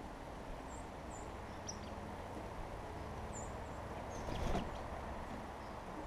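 Small songbirds giving a few short, high chip notes, then a brief fluttering whoosh of wings about four seconds in as a bird flies in close to the feeder. A steady low rumble of wind and ambient noise runs underneath.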